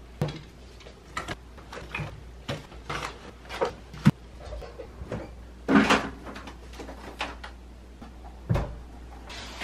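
Small cosmetics refrigerator being restocked: irregular light clicks and knocks of plastic bottles and jars set onto its shelves and door rack, with the fridge door being handled, and a sharper click about four seconds in and a duller thump near the end.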